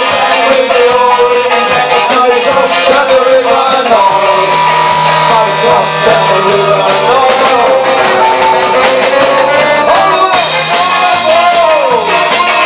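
Live ska-style band music: saxophone playing the melody over electric guitar, bass guitar and drums.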